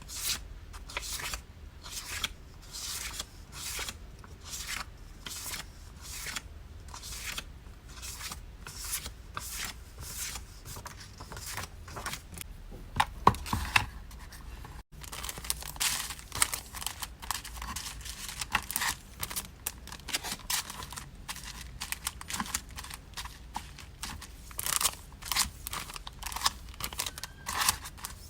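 Order-packing handling noise: a steady run of short, crisp strokes about two a second, then a few louder knocks and busier crinkling and tearing of paper and plastic packaging.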